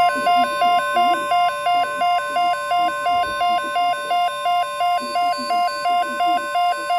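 Weather radio alert tones: a steady 1050 Hz NOAA Weather Radio alarm tone overlaid with a rapidly alternating two-pitch electronic beeping, about three beeps a second. The alarm signals an incoming National Weather Service alert, here a severe thunderstorm watch.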